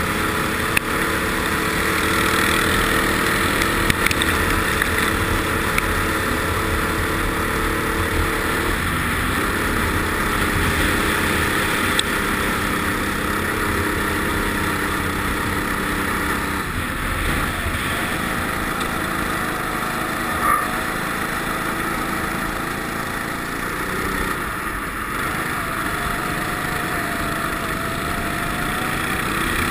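Go-kart engine running at speed, heard from onboard the kart, its note shifting about a third and again about halfway through. A few sharp clicks are scattered through it.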